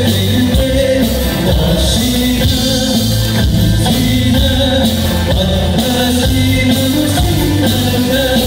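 Live amplified music: a sanshin, the Okinawan three-stringed lute, accompanying a sung Okinawan song, played without a break through a PA system.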